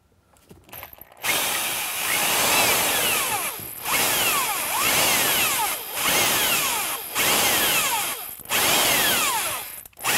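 Black & Decker cordless drill spinning a 5/8-inch paddle bit into the plastic lower dash trim panel. It starts about a second in and runs in bursts of one to two seconds with short pauses, its whine repeatedly dropping in pitch as the bit bites into the panel.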